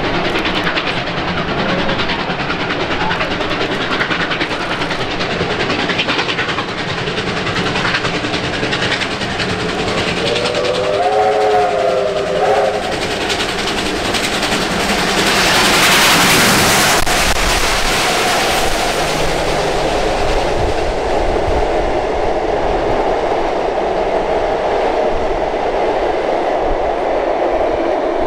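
Two R class steam locomotives hauling a heavy train past on an upgrade, exhaust chuffing steadily over rail noise. A steam whistle sounds for about two seconds, wavering in pitch, about ten seconds in. The loudest rush comes as the locomotives pass at around sixteen seconds, and the carriages then roll past.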